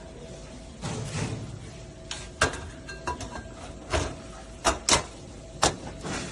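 Several sharp knocks and clacks of metal display-cabinet parts being handled, with a brief rubbing scrape about a second in and two quick knocks close together near the end.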